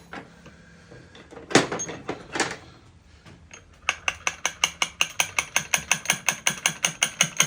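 Two metallic clanks, then a ratchet spanner clicking fast and evenly, about five clicks a second, as a nut or bolt is wound on the engine.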